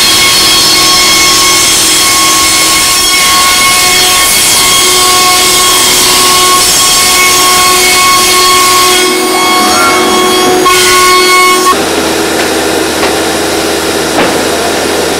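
Multiax CNC router spindle cutting marine plywood: a steady high-pitched spindle whine over loud cutting noise. About twelve seconds in the sound changes abruptly, the whine dropping back and a low hum coming in.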